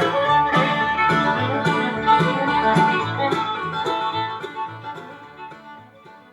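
Bluegrass-style music with guitar, banjo and fiddle, played through the newly installed golf cart radio. It starts suddenly and fades out over the last couple of seconds.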